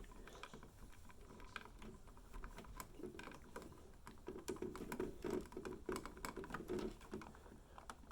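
Small irregular clicks and rubbing as stiff electrical wires and their connectors are handled and worked together by hand.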